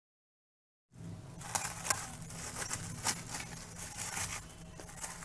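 After about a second of dead silence, plastic cling film crinkling in quick crackles as hands press it down around a bowl of dough.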